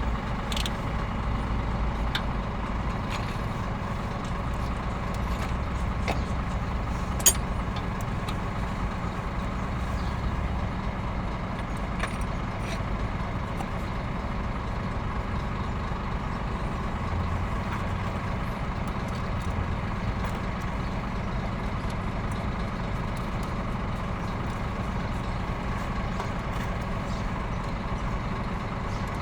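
A machine running steadily with a low hum, with scattered light clicks and one sharp knock about seven seconds in.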